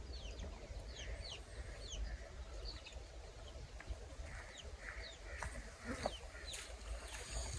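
Birds chirping: many short, quick chirps that slide downward, scattered irregularly, over a low steady rumble.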